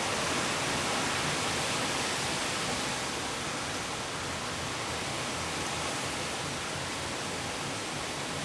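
Strong wind rushing steadily through trees and leaves, an even hiss that eases slightly about three seconds in.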